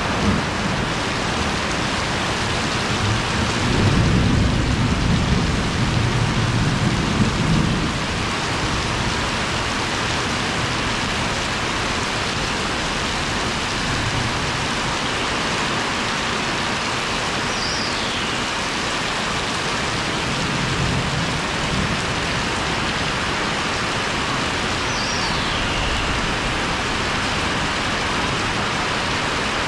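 Heavy rain pouring steadily. A low rumble of thunder swells from about three to eight seconds in.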